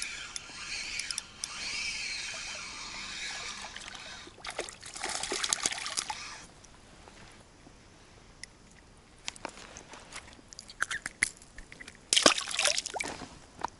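Water splashing and trickling in short bursts, one about four seconds in and another near the end, with scattered light clicks in between.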